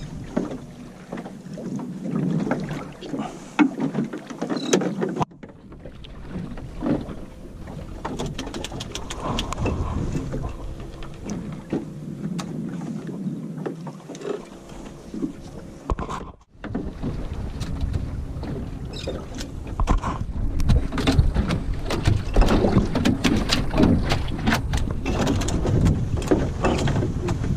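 Water slapping and lapping against the hull of a small open fishing boat, with wind buffeting the microphone and scattered short knocks and splashes. The wind rumble grows louder in the last several seconds.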